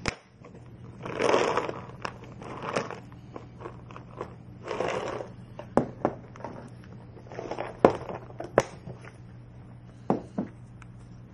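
Rustling and shaking of a plastic pouch of cat treats, in several short bursts, with sharp clicks and taps between them as the treats are handled.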